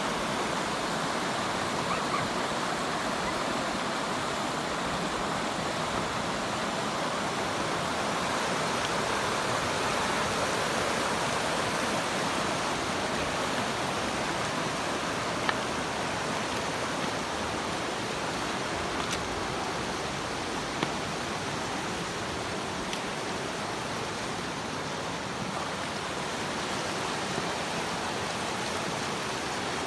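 River water running, a steady rushing noise, with a couple of faint brief ticks about halfway through.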